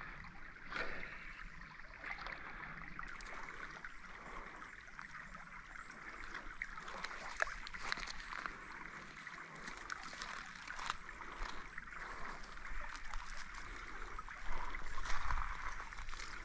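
Shallow creek water running over a gravel riffle: a steady burbling rush, with scattered small clicks and a louder stretch near the end.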